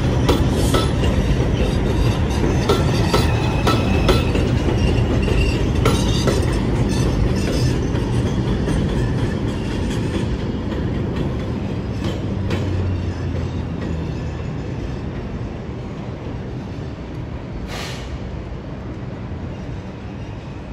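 New York City Subway R142-series train running on the elevated Jerome Avenue Line, its wheels clattering over the rail joints with a few brief high squeals in the first several seconds. The rumble then fades steadily as the train moves away.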